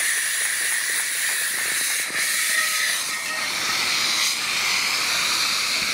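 Steady rushing hiss of pressurised gas: LPG leaking and burning from a gas cylinder's hose while a hand-held fire extinguisher is discharged onto the flame.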